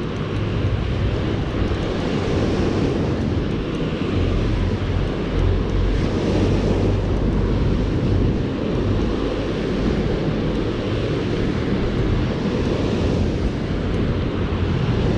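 Wind buffeting the microphone over surf washing on the beach, a steady rush that swells and eases every few seconds.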